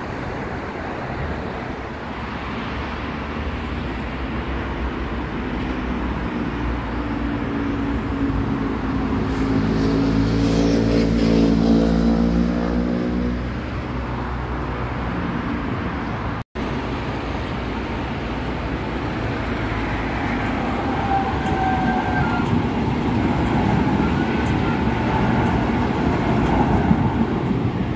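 Busy street traffic passing close: a steady rush of cars with low rumble, and a heavy vehicle's engine going by about ten seconds in, rising then falling in pitch. The sound cuts out for an instant midway, and a tram passes close near the end.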